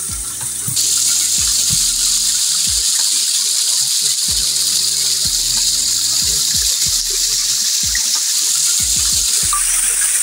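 Clear spring water cascading down over rocks in a small hillside fall, a steady loud rushing hiss that grows louder about a second in and eases slightly near the end. Occasional short low bumps sound under it.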